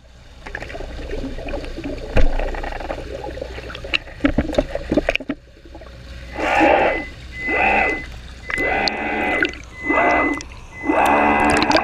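Water sloshing and knocking against the camera housing as it enters the lake. About six seconds in, a run of pulsing underwater whirring with a steady high whine begins, turning continuous near the end: motor or propeller noise heard through the water.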